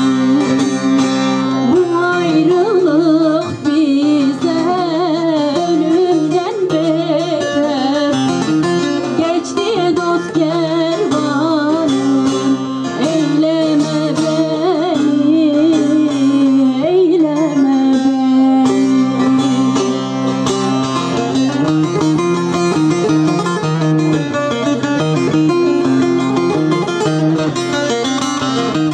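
A woman singing a Turkish folk song (türkü) in a wavering, ornamented melody, accompanied by a plucked stringed instrument.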